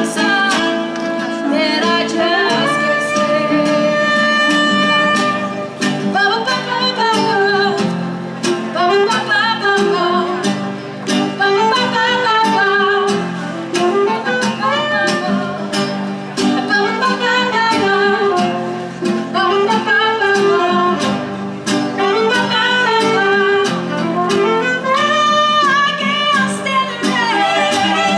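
Live instrumental break on saxophone, acoustic guitar and concert harp: the saxophone plays a solo melody with sliding, bending phrases over the guitar and harp accompaniment.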